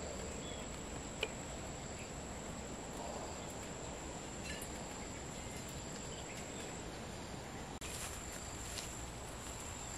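Steady, high-pitched insect drone over quiet outdoor ambience, with a single faint click about a second in.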